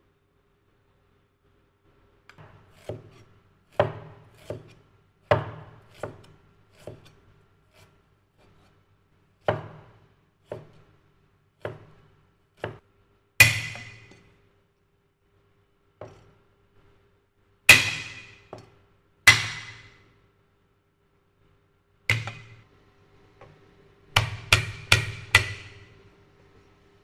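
Broad-bladed cleaver chopping on a thick round wooden chopping block: single chops at uneven intervals, some much louder than others, then a quick run of about five chops near the end.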